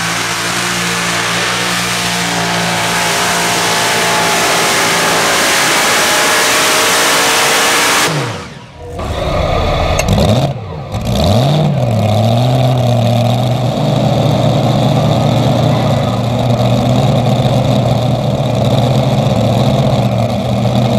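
Competition pulling tractor's engine running at full power, loud and dense, cutting off abruptly about eight seconds in. An engine then revs down and up briefly before settling into a steady idle.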